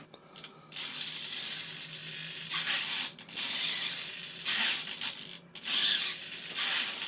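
Small RC flap servos running in short bursts, about six in a row, as the flaps are driven between positions: a hissy, buzzy gear sound with brief pauses between moves.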